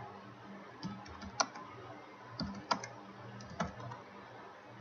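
Typing on a computer keyboard: scattered keystrokes in small clusters, over a steady low hum.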